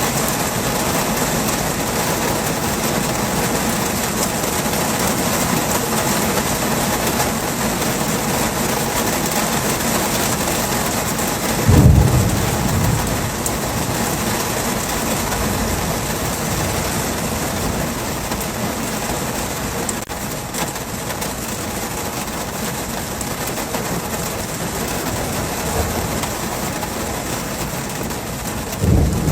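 Heavy rain pouring steadily, with a loud burst of thunder about twelve seconds in and another thunder rumble starting near the end.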